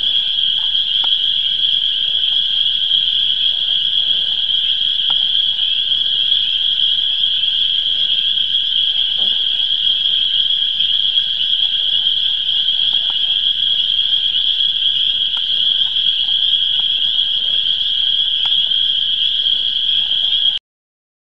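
Dense spring chorus of frogs calling, a steady high-pitched ringing with no breaks. It cuts off suddenly near the end.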